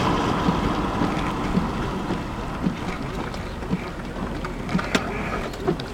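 Steady rushing vehicle noise with a low rumble, fading slowly, with scattered sharp ticks of raindrops striking the vehicle.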